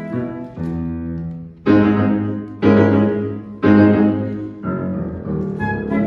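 Grand piano playing a waltz: three loud chords struck about a second apart, each ringing and fading, then quieter playing near the end.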